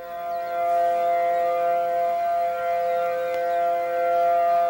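Federal Signal outdoor civil defense warning siren sounding a steady wail, several held tones together at an even pitch: the public alert for the approaching hurricane.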